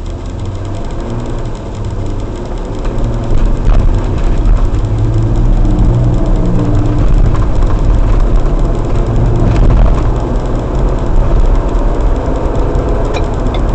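Car engine and road noise heard from inside the cabin, growing louder about three seconds in as the car picks up speed through the intersection. A light, regular ticking starts near the end.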